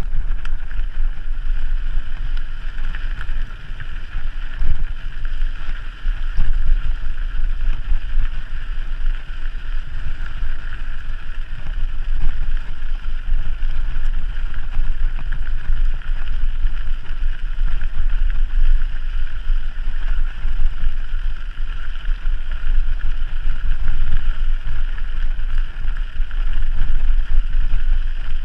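Wind buffeting the microphone of a camera riding along on a mountain bike, a heavy uneven rumble over a steady hiss.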